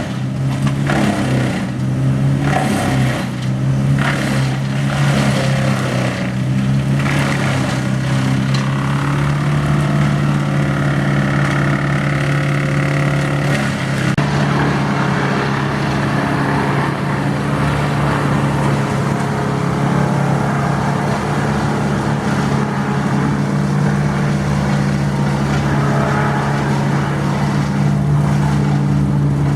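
A large engine on tree-removal equipment running steadily at a constant high speed. Irregular cracking and crunching noises come over it during the first several seconds.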